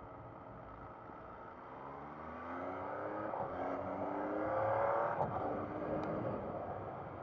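MV Agusta Brutale 800 Rosso's three-cylinder engine accelerating. The revs rise, dip at a gear change about three and a half seconds in, climb again, then ease off after about five seconds.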